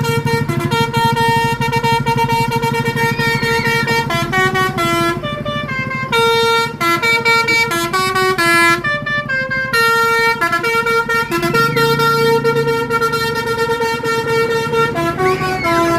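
Bus telolet horn, a set of tuned air horns, playing a tune in long held notes that step from pitch to pitch, over a low steady drone.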